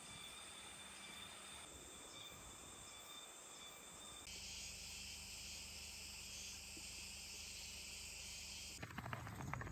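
Faint, steady chorus of insects trilling, shifting abruptly in pitch and loudness twice. A louder, different sound breaks in near the end.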